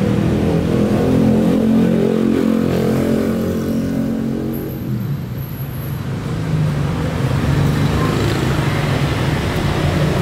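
An engine running steadily, dipping in level about halfway through and then picking up again.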